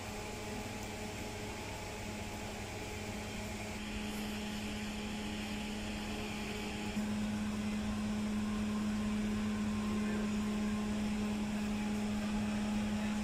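Steady hum of an electric blower fan, a low tone over a hiss, getting a little louder about seven seconds in.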